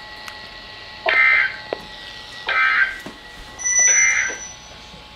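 Three short bursts of Emergency Alert System SAME digital data, a shrill screeching warble, each about half a second long and about a second and a half apart.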